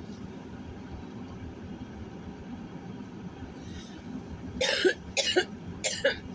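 Steady low rumble of a car driving, heard from inside the cabin. Near the end a person coughs three times in quick succession, a smoker's cough that they put down to cigarettes.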